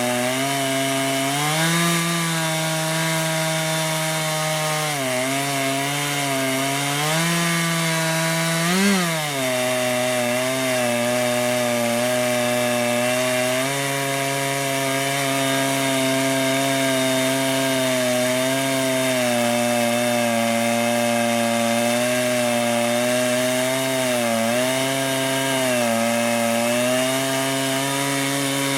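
Chainsaw on a chainsaw mill ripping a cedar log lengthwise, its engine running steadily under load. The pitch sags a few times as the cut loads it, and the engine revs up sharply once about nine seconds in before settling back.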